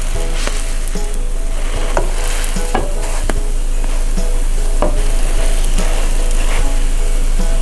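Food sizzling in a hot frying pan, with a cooking utensil now and then tapping and scraping against the pan.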